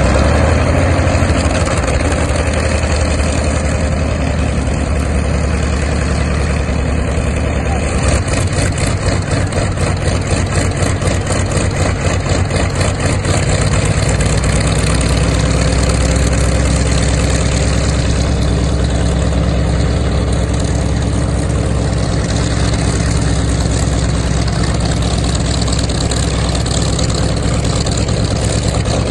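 Douglas A-1 Skyraider's Wright R-3350 eighteen-cylinder radial engine idling steadily just after startup, its propeller turning. The deep low note shifts slightly about 8 and 14 seconds in as the engine settles.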